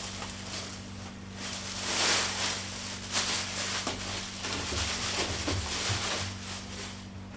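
Packaging rustling and crinkling as a waterproof floating gun case is opened and handled, in irregular swells.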